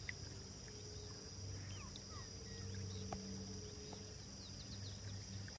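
Faint riverside ambience: scattered short bird chirps and calls over a steady high insect buzz and a low hum, with one small click about three seconds in.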